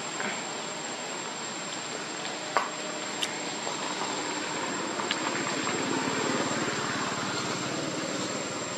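Steady outdoor background hiss, with a few short faint clicks.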